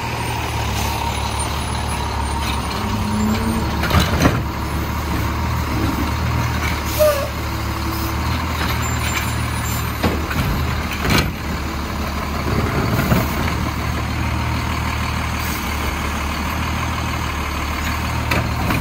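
Diesel Autocar WXLL McNeilus Autoreach side-loader garbage truck running with a steady low engine drone. A few sharp knocks and clanks sound over it, the clearest about four and eleven seconds in.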